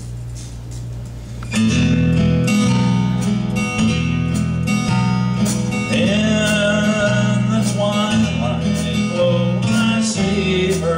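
Acoustic guitar playing a slow country intro that starts about a second and a half in, after a low hum, with steady bass notes under the chords. From about six seconds in, a wavering melody line joins.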